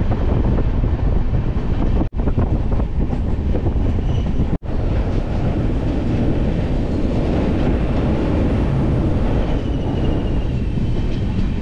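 Passenger train running along the track: a loud, steady rumble of wheels and coach. The sound cuts out for an instant twice, about two and four and a half seconds in.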